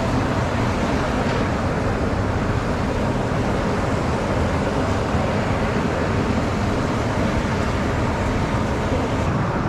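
Steady rushing noise of steam pouring off a near-boiling hot-spring pond, the water coming out at about 98 °C.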